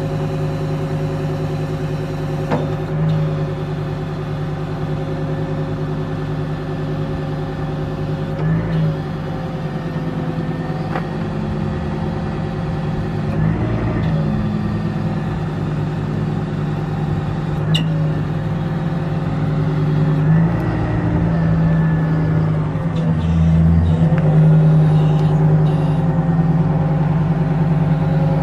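Ford F550's 6.8-litre V10 gas engine running steadily with an even hum, its pitch dipping briefly several times and the level rising a little toward the end.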